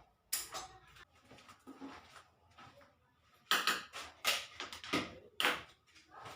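A series of short, sharp knocks and rustling handling sounds: one about a third of a second in, then four or five in quick succession in the second half.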